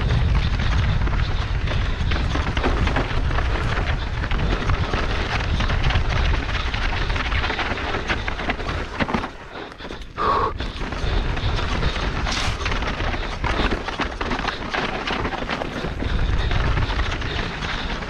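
Wind buffeting the camera microphone as a mountain bike descends fast over rough, rocky ground, with the tyres, chain and frame clattering and knocking. The noise eases briefly about nine to ten seconds in.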